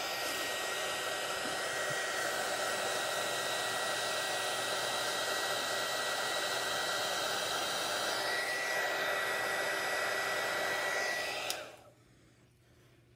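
Heat gun blowing steadily, a rushing fan noise with a faint high whine, switched off suddenly near the end. It is being run over freshly mixed epoxy resin to pop the bubbles in it.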